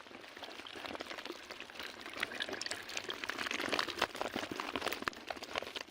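Water splashing and trickling with many small irregular taps, from small tengra and puti fish flapping in a bamboo fish trap.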